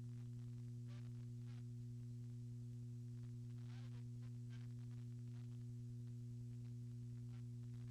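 Steady electrical hum with a stack of low steady tones, from the surveillance recording's audio line. Faint, indistinct voices of the bar crowd come through underneath now and then.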